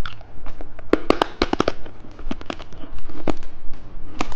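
Rainbow candy clicking and crackling close to the microphone: a quick cluster of sharp clicks about a second in, then scattered single clicks.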